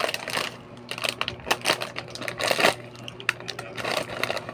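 Plastic snack packet of Oishi Fish Crackers crinkling and crackling as it is pulled open and handled, with a burst of sharp crackles about two and a half seconds in.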